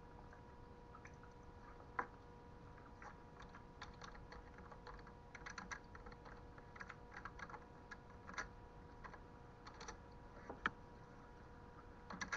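Faint, irregular clicking of typing on a computer keyboard, in short bursts that bunch up around the middle, over a steady faint electrical hum.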